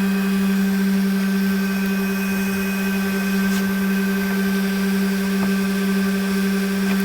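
Curved-edge banding trimming machine running with a steady, unchanging motor hum.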